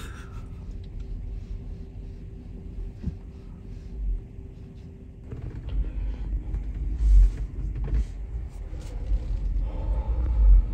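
Car cabin rumble from a car moving slowly, with a steady engine hum. Heavier low rumbling swells in the second half.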